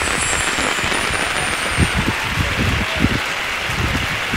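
Wind buffeting an outdoor microphone: a steady hiss with low rumbling gusts, bunched in the second half.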